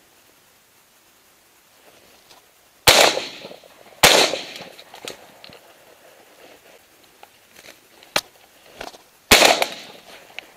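Three shotgun shots from a double-barrelled shotgun fired at flying pigeons: two about a second apart, then a third some five seconds later. Each shot has a short echoing tail. A sharp click comes about a second before the third shot.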